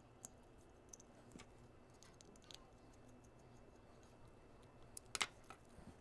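Faint small metallic clicks and taps of a small screwdriver turning a screw to fit shield terminations onto a connector backshell, a few scattered clicks with a sharper cluster of clicks about five seconds in.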